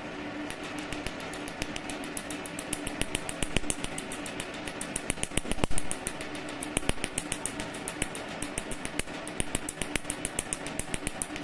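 PicoSure picosecond tattoo-removal laser firing pulses onto tattooed skin: a rapid run of sharp, evenly spaced clicks, several a second, starting about half a second in, over a steady low hum.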